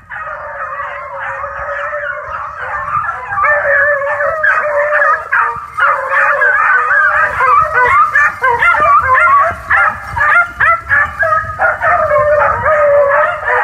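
A pack of beagles baying while running a rabbit, several hounds giving tongue at once in an overlapping chorus that grows louder about four seconds in.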